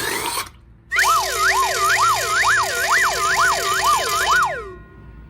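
A siren-like wailing tone that sweeps up and down about eight times in three and a half seconds over a hiss, then cuts off.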